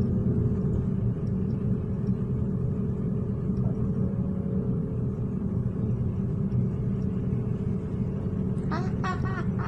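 City bus engine and road noise heard from inside the cabin while driving: a steady low drone. Near the end, a quick run of short squawk-like sounds starts over it.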